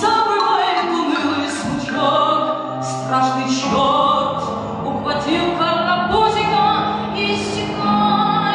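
A song performed live: a singer's voice holding long, bending notes over an instrumental backing track with sustained bass notes and repeated cymbal-like splashes.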